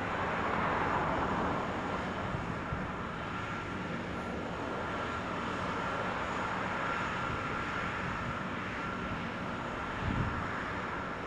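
Aircraft engine noise: a steady rumble and hiss with a faint steady whine, swelling slightly in the first couple of seconds.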